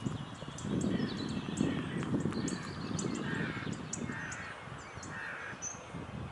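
Birds calling: three short, evenly spaced calls from a larger bird in the second half, over faint high chirps of small birds. A low rumble runs underneath.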